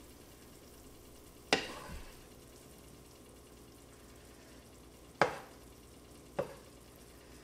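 Wooden spoon scooping cooked diced meat out of a frying pan onto a plate: three sharp knocks, about a second and a half in, near five seconds and again a second later, over a faint sizzle from the pan.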